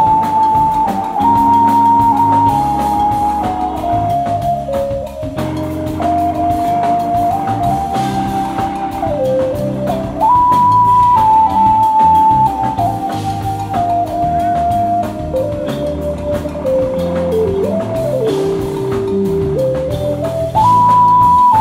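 Live jazz-funk band playing: a lead melody of long held notes that step and glide between pitches, over bass guitar, drum kit and percussion.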